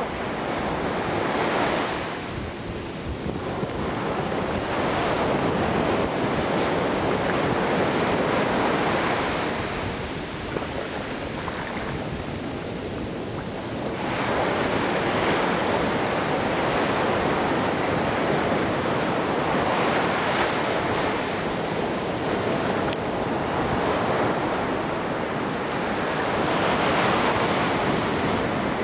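Ocean surf breaking and washing up a sandy shore, a steady rush of water that swells and eases every few seconds as each wave comes in.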